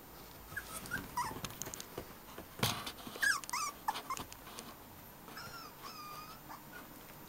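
Two puppies play-fighting, giving short high squeaks and yips over scuffling clicks, with a sharp knock a little over two seconds in. Near the end comes a pair of longer whines.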